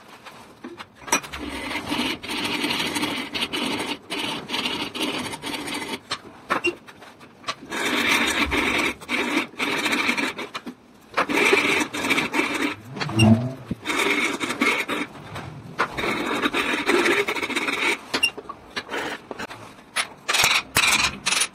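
A hand file rasping over the old wooden handle stub lodged in a steel hammer head's eye, in repeated scraping strokes with short pauses between them, wearing the wood down to the head.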